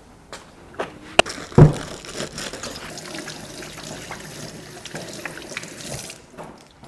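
Water running from a tap into a glass for about four and a half seconds, then cut off suddenly. A sharp click and a louder knock come just before the water starts.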